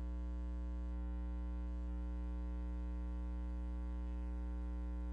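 Steady electrical mains hum: a low, buzzy drone with a stack of evenly spaced overtones that holds unchanged.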